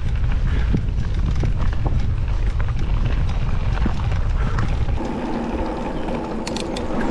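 Riding an e-mountain bike with its motor switched off: wind buffets the microphone and the tyres rumble over the trail. About five seconds in the rumble drops away and a steady buzz takes its place, with a few sharp clicks near the end.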